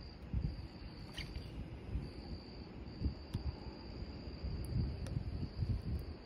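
Crickets trilling steadily in a high thin tone, over low, uneven rumbling.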